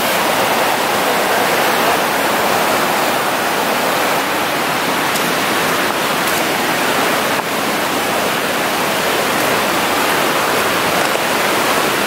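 Mountain creek rushing over rocks in whitewater rapids: a steady, unbroken rush of water.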